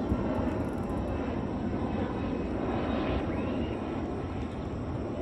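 A Thunderbirds F-16 Fighting Falcon jet flying low on its landing approach, a steady jet engine roar that eases slightly in the second half.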